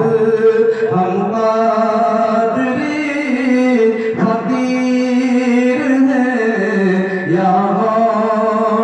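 A male naat reciter's solo voice singing an Urdu devotional naat in long held notes that bend slowly up and down in pitch.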